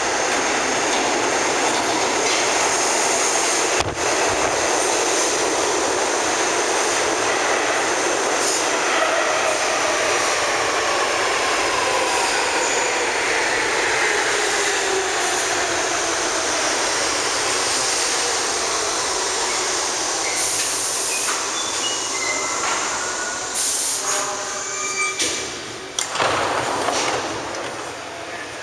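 R68 subway train pulling into the station and braking to a stop: a loud rumble of steel wheels on rail, with a whine that falls in pitch as it slows. Near the end come short hisses of air, a few brief tones, and a loud clunk as the doors open.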